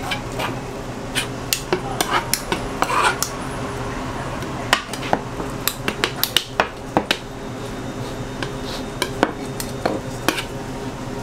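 Metal scraper and knife blades scraping and tapping on a plastic cutting board as fish-cake paste is spread flat and rolled, with a quick run of sharp taps near the middle. A steady low hum runs underneath.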